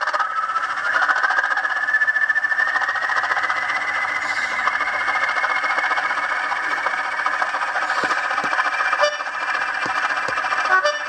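Sound-fitted Bachmann Class 20 model locomotive's decoder playing its English Electric diesel engine start-up through a newly fitted twin speaker in a larger sound box: a whine rising over the first few seconds, then a steady running sound with rattling and occasional clicks.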